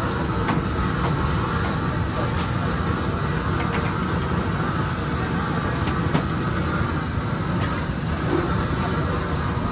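Steady low rumble of street noise at a food stall, with a few sharp clicks scattered through it.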